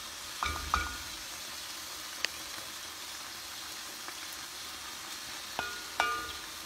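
Wooden spoon stirring cooked brown rice in a pot, knocking against the pot with a short ring about half a second in and twice near the end, with one sharp click in between. Under it, a steady sizzle of fish frying in oil in a pan.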